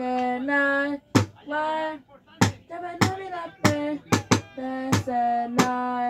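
A person singing long held notes, broken every half second or so by sharp percussive hits.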